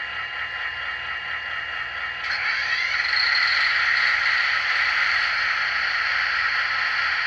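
Sound decoder of a Rapido FL9 model locomotive playing its diesel prime mover at idle. About two seconds in, the head-end-power generator sound is switched on: it rises in pitch for about a second, then settles into a steady, louder run over the idle.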